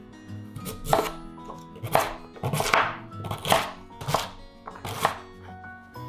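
Kitchen knife chopping food on a cutting board: about seven sharp strokes, roughly one a second, over background music.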